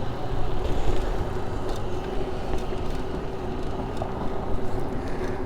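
A car passing close by at low speed, its engine running steadily over a low rumble.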